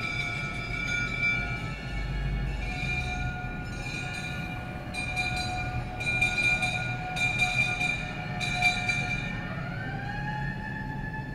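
Vintage fire-engine bells ringing with steady, overlapping tones, struck repeatedly and loudest in the middle. Near the end a siren rises, holds and falls away.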